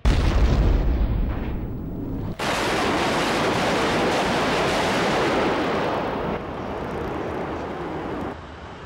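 A self-propelled howitzer firing: one heavy blast with a deep rumble that dies away over about two seconds. It cuts abruptly to a steady, loud rushing noise that drops in level twice toward the end.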